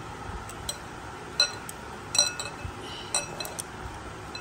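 A glass mixing bowl clinking sharply several times, each clink with a brief high ring, as a hand wearing gold rings mixes food in it and the rings knock against the glass.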